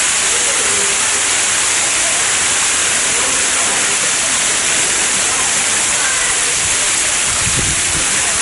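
Water feature's cascading fountain and waterfall, a steady loud rush of falling water.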